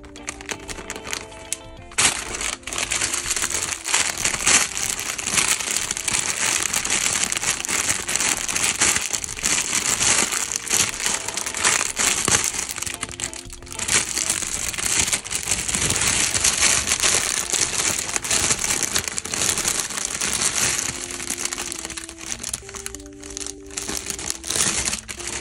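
Thin plastic bags crinkling and rustling loudly as they are handled and pulled open, starting about two seconds in with a short pause about halfway through, over soft background music.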